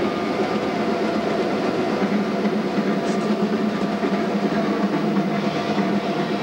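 Caterpillar D8N crawler dozer heard from inside its cab as it travels: the six-cylinder diesel running steadily under the dense rattle of the steel tracks.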